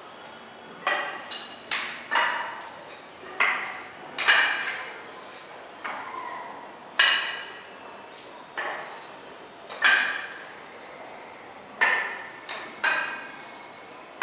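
Sharp knocks with a short metallic ring, repeated irregularly about once a second, some in quick pairs.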